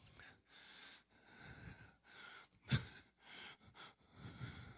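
A man's faint breathing into a microphone, soft breaths about once a second with one sharper intake near the three-second mark.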